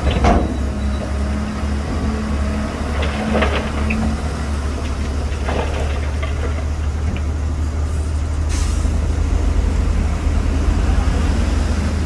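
Dump truck's diesel engine running steadily while the raised bed tips a load of soil and rock, with a few knocks and rattles as rocks tumble off the bed. A short hiss about two-thirds of the way through.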